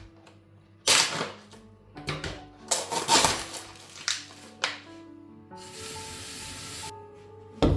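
Soft background music over everyday handling noises: rough rubbing or scraping sounds about a second in and again around three seconds, a steady hiss lasting about a second and a half, and a sharp knock near the end.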